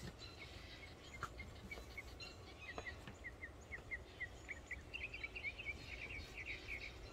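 A bird calling outdoors: a series of short high chirps that start sparse and come faster and denser toward the end, over a low steady rumble of wind or background noise, with a couple of faint clicks.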